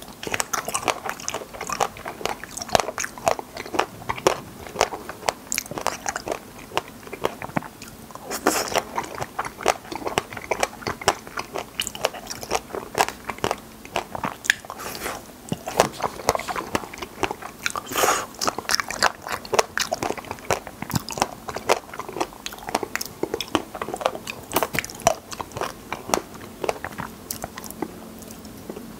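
Close-miked mouth sounds of someone chewing and biting wild raspberries, a dense, irregular run of small sharp clicks.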